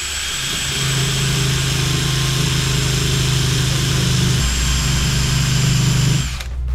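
Handheld power grinder running steadily with a high whine, cleaning out a groove in a suspension arm to prepare it for re-welding; it cuts off about six seconds in.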